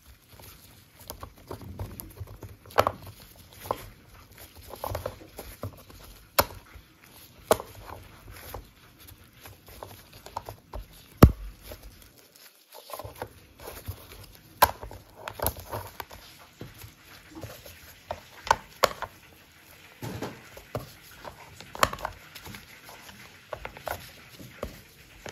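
Bamboo sushi rolling mat being pressed and rolled by hand on a wooden board: irregular clicks and taps of the bamboo slats, a few sharper than the rest, over soft handling noise.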